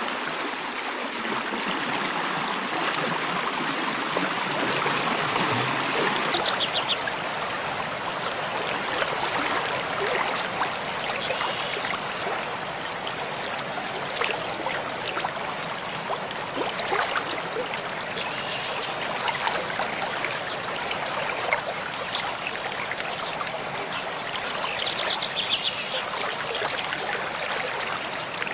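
Mountain stream flowing over rocks, a steady rushing and trickling. A bird calls briefly twice, about 6 seconds in and again near the end.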